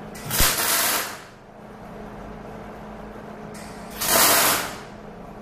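MIG welder laying two tack welds: two short bursts of arc noise, each under a second long, about four seconds apart.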